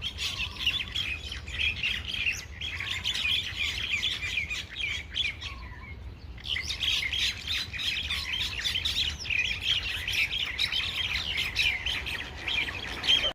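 A group of mynas fighting, a dense, continuous chorus of harsh squawks and chattering calls, with a brief lull about six seconds in.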